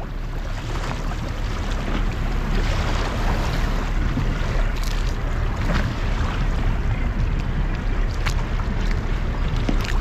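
Choppy sea water splashing and rushing close by a small boat, with wind buffeting the microphone and a steady low rumble underneath.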